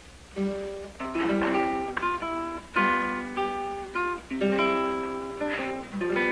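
Acoustic guitar picking a melody of single notes and chords, starting about half a second in.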